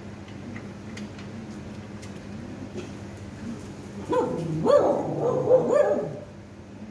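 A dog barking and whining in a quick run of short calls for about two seconds, starting about four seconds in.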